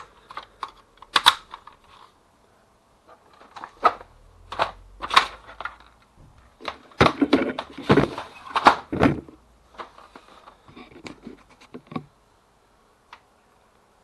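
Plastic clicks, snaps and knocks from a Kyocera FS-1320D laser printer's paper cassette: a part pressed back into the cassette, then the paper-loaded cassette slid into the printer, with the loudest knocks about seven to nine seconds in.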